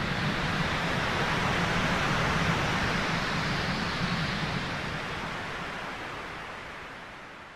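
Synthesized noise wash from a digital synthesizer: a steady hiss that starts abruptly and holds, then slowly fades out over the last few seconds.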